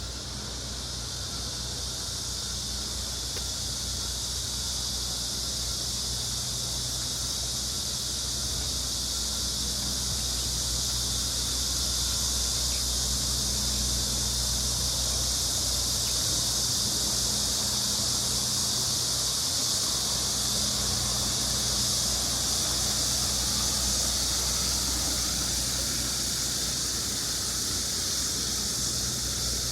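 Steady outdoor ambience: a high hiss that swells over the first half and eases slightly near the end, over a low steady hum.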